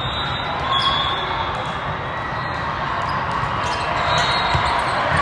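Volleyball gym ambience: many people chattering in an echoing hall. There are a few low thumps, and a couple of short high squeaks about a second in and again about four seconds in.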